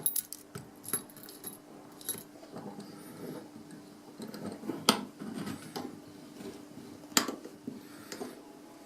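Olympia OLY70038 38 mm brass padlock handled and its locked shackle tugged: scattered small metal clicks and rattles, with two sharper clacks about five and seven seconds in.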